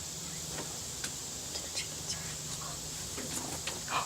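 Faint, short, scattered bird chirps over a low steady hum, with the chirps closer together near the end.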